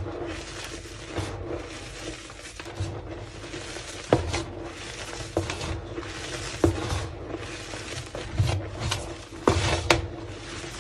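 Slabs of homemade squeaky gym chalk being crushed: a continuous crumbly crunching, broken by irregular sharp snaps as pieces break, the loudest two close together near the end.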